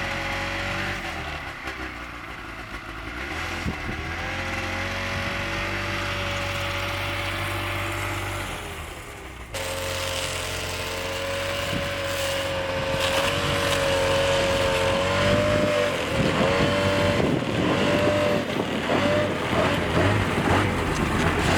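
Ski-Doo Tundra snowmobile engine running steadily, with a sudden cut about nine and a half seconds in. After the cut the engine note wavers up and down and grows louder and rougher toward the end.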